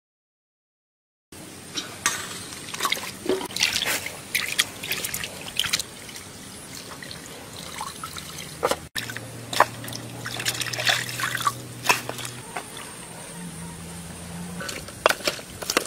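After about a second of silence, water trickles and drips off raw chicken pieces being rinsed and turned by hand, with small splashes and wet clicks of the handled meat.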